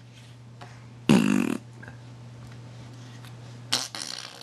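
A baby blowing a raspberry, one buzzy lip-trill about half a second long about a second in, followed near the end by a short breathy mouth noise.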